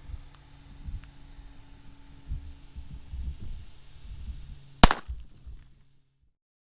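A single handgun shot cracks about five seconds in, over low rumbling noise on the microphone.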